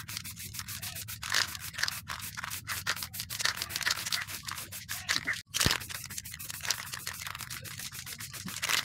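Aerosol spray-paint can hissing in short, repeated sprays, cutting out for an instant about halfway through.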